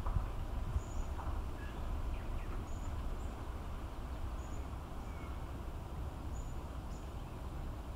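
Outdoor ambience: a low rumble of wind on the microphone, with a bird repeating a short, high chirp every second or two and a few fainter calls in between.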